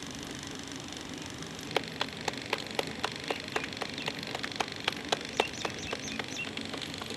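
Roti dough being slapped back and forth between the palms to stretch it for the tandoor: a quick run of pats, about four a second. The pats start a little under two seconds in and stop about a second before the end.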